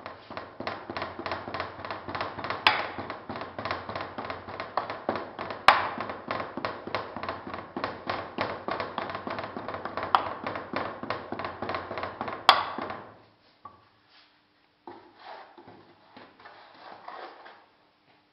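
A hand rammer packing moulding sand (quartz sand, clay and molasses binder) into a metal casting flask, with rapid, even tamping strokes several a second and a few louder knocks among them. The ramming stops and softer scraping follows near the end as the sand is levelled.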